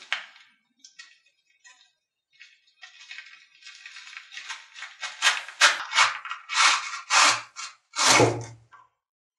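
A rusty old survival knife being worked out of its stiff, worn sheath, rasping and scraping in repeated strokes. They come sparse at first and turn louder and quicker from about halfway, with a heavier scrape near the end as the knife slides out.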